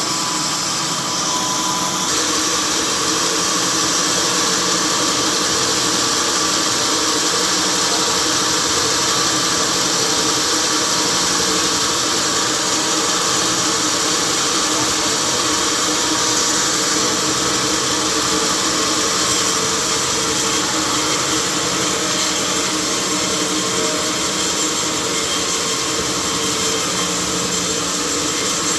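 Sawmill machinery running steadily: a saw and its drive motor giving a continuous hiss with a steady hum underneath, getting a little brighter about two seconds in.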